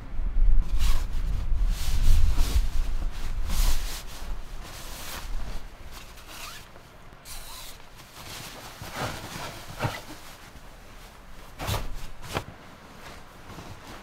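Nylon sleeping bags and quilts rustling as they are handled and spread out, in a run of short rustles. A low rumble runs under the first four seconds or so.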